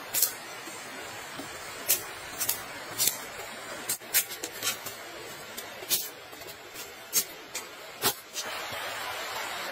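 Plant stems and dry twigs snapping in about fifteen sharp, crisp, irregular clicks, with one heavier snap near the end, over the steady rush of a stream that grows louder in the last second or so.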